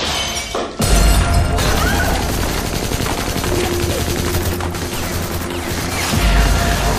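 Heavy, rapid gunfire from several guns. It starts with a deep boom about a second in, another boom comes near the end, and music plays underneath.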